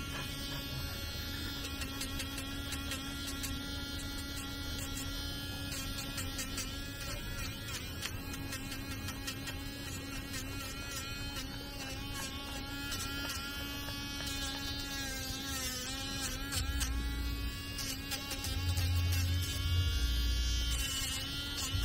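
Electric nail grinder running with a steady high buzz while it files a French bulldog's claws, its pitch dipping briefly about two thirds of the way through. A low rumble comes in near the end.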